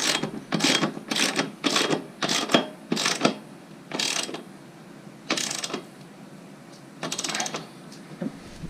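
A ratchet wrench clicking in repeated short strokes as the rear axle nut is tightened, with a spanner holding the other side. The strokes come quickly at first, then slow to a few spaced strokes.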